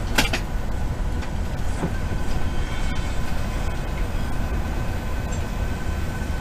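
Amtrak Acela Express train running: a steady low rumble of rail noise with a faint steady high whine over it, and a single sharp click just after the start.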